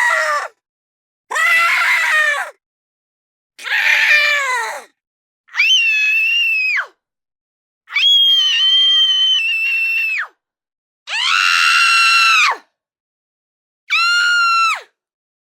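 A series of very high-pitched scream sound effects voiced for fairy characters: about seven separate screams, each one to two seconds long, with dead silence between them. Some glide down in pitch at the end, and some are held level.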